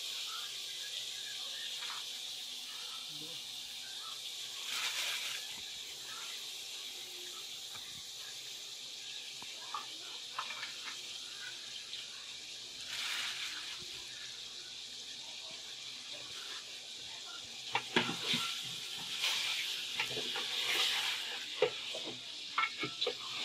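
Pieces of raw duck meat in water being stirred with a wooden spatula in an aluminium pot on the stove: wet splashing swells now and then, and there are sharp knocks of the spatula against the pot near the end, over a steady hiss.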